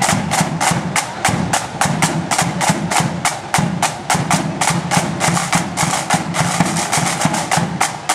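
Marching flute band's drum corps: side drums beating a rapid, steady march rhythm of about four to five strokes a second, with a bass drum thumping under them.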